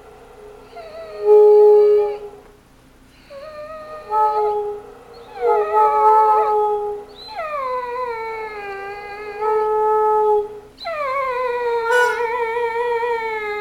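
A dog howling and 'talking' in a run of about five long drawn-out calls that slide and waver in pitch. Several fall away at the end, with short breaks between them.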